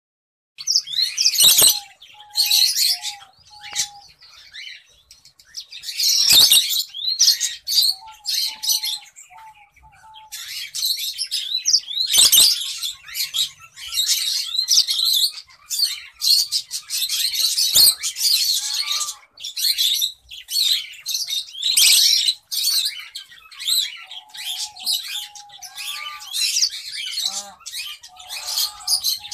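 Finches chirping busily, with many short high calls overlapping almost without pause and a few lower whistled notes among them. It starts abruptly about half a second in, and a few sharp clicks are mixed in.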